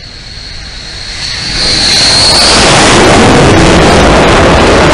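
Jet aircraft engine noise swelling quickly about a second and a half in to a very loud, steady rush, with a high turbine whine that is drowned as it builds.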